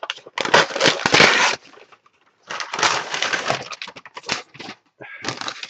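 Packing paper and foam crinkling and rustling as a computer water-cooling radiator is unwrapped, in three bursts with short pauses between them.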